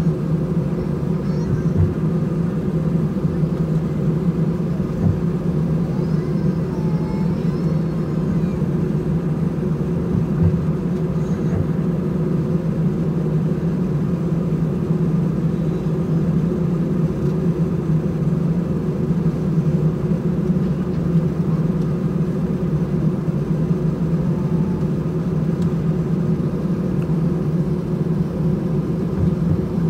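Steady, even hum of an Airbus A320 at taxi idle, its twin CFM56-5A engines running, heard inside the cabin from a seat over the wing.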